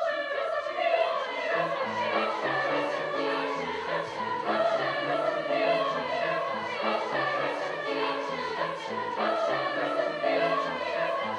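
High school choir singing a gospel spiritual in parts, with a low pulsing bass line under the voices.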